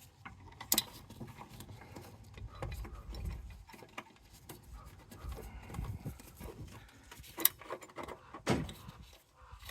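Light handling noises with a few sharp metallic clicks as the screws of a replacement door-handle bracket on a skidder cab door are started by hand.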